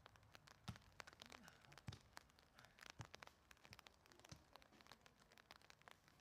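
Near silence with a few soft thumps of a football being kicked, roughly once a second, over faint scattered crackling ticks.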